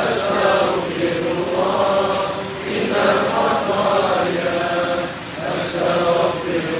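Voices chanting an Islamic zikir in Malay, long slow melodic phrases with short breaks between them.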